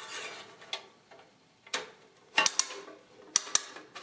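Add-O-Matic chain adding machine being worked by hand to add a 9: the chain is pulled through a digit slot, giving an irregular run of sharp metal clicks that come closer together toward the end.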